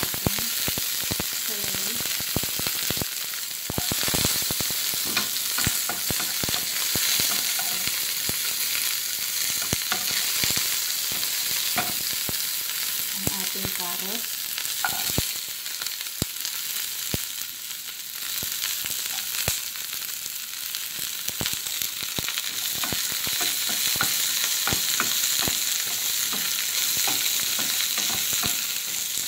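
Celery and carrot strips stir-frying in hot oil in a nonstick frying pan: a steady sizzle with frequent clicks and scrapes of a wooden spatula against the pan as the vegetables are tossed.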